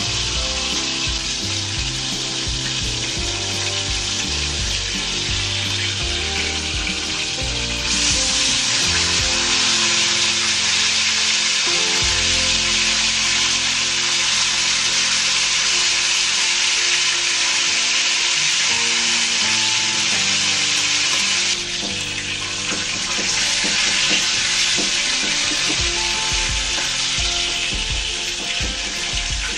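Chicken pieces frying in hot oil in a wok: a steady, loud sizzle that grows louder about a quarter of the way in and eases off briefly about two-thirds through.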